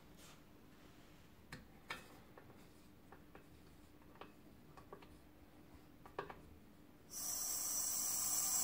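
A few light clicks and knocks of handling, then about seven seconds in an air compressor starts abruptly and runs with a steady, much louder buzzing hiss.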